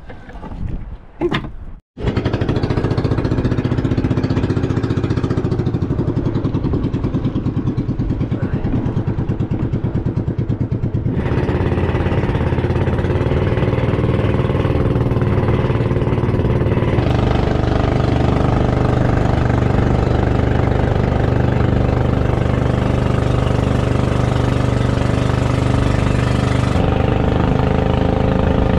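Engine of a small motorized outrigger boat (bangka) running steadily under way, with water rushing along the hull. The sound shifts abruptly a couple of times along the way.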